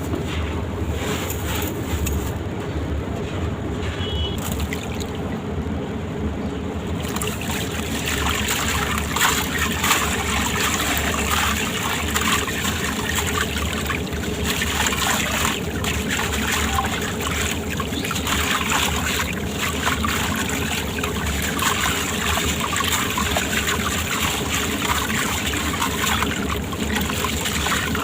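Sand-cement shapes crumbling wet, a dense gritty crackle with a trickling, watery sound that grows fuller about a quarter of the way in.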